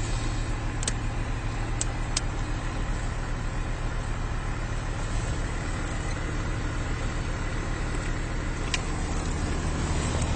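Car engine idling steadily, a low even hum, with a few faint clicks.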